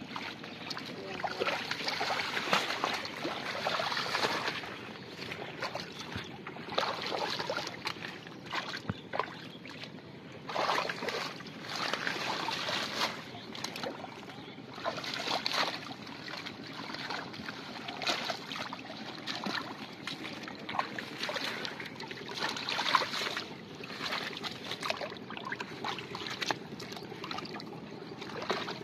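Hands sloshing and splashing in shallow muddy water, in irregular bursts a second or two apart, as they feel through the mud for fish.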